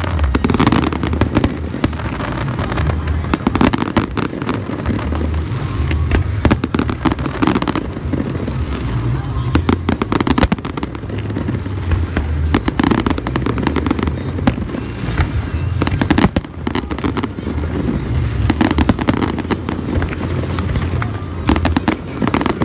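Aerial fireworks bursting in a continuous barrage: many closely packed bangs and crackles overlapping, with deep booms underneath.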